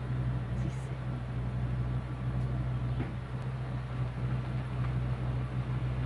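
Steady low hum of an idling engine, unchanging throughout.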